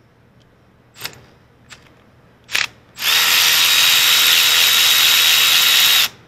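Power ratchet spinning a small bolt at an engine's crankshaft position sensor. It gives a few short blips first, then runs steadily with a high whine for about three seconds before cutting off sharply.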